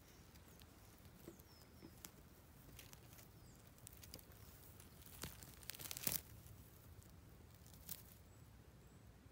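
Faint rustling and crackling of moss and needles as a coral mushroom is handled and pulled up from the forest floor, with a few soft tearing clicks, the loudest about six seconds in.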